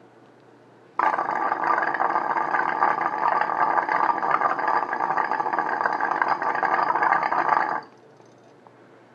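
Water bubbling through the diffuser of a glass water pipe as air is drawn through it. The bubbling starts suddenly about a second in, runs steadily for about seven seconds and cuts off near the end.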